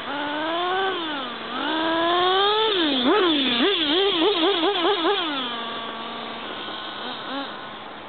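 Multiplex Blizzard RC plane's 1000 W brushless electric motor and propeller whining in flight. The pitch rises and falls several times, warbles quickly up and down about four or five times a second in the loudest middle stretch, then settles to a steady lower tone.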